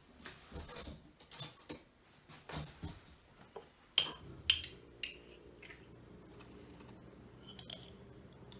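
A metal spoon clinks and scrapes against a glass jar of strawberry jam and a measuring cup as the jam is scooped out, with the sharpest clinks about four seconds in. A steady low hum starts at the same moment.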